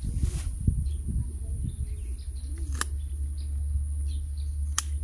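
Two sharp snips of hand pruning shears cutting loa tree branches, about two seconds apart, with small birds chirping in the background.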